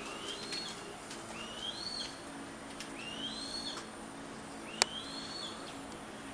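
Juvenile African harrier-hawk (gymnogene) calling: four high, thin whistles, each sliding upward and then levelling off, under a second apiece and evenly spaced. A single sharp click cuts in once, about three-quarters of the way through.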